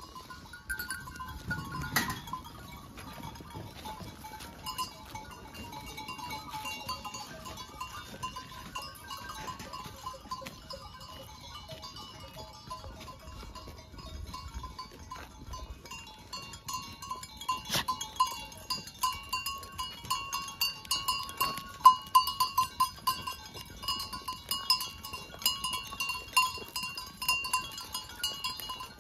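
A herd of goats on the move, bleating. From about halfway through, a busy run of quick clicks and rustles sets in.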